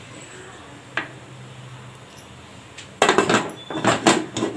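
Aluminium pressure cooker lid being fitted and closed: one metal click about a second in, then quick, repeated metallic clattering and knocking from about three seconds in.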